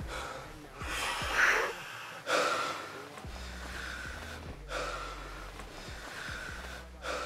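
A man's laboured, gasping breaths during an asthma attack: a series of rasping inhales and exhales about a second apart, the loudest two in the first few seconds.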